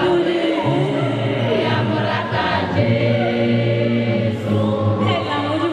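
Gospel song sung by a group of voices over sustained low bass notes.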